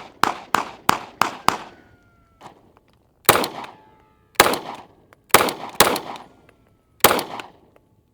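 AR-15 rifle fired semi-automatically. A fast string of five shots comes in the first second and a half, then after a short pause five more shots follow at an uneven, slower pace, each crack leaving a ringing tail.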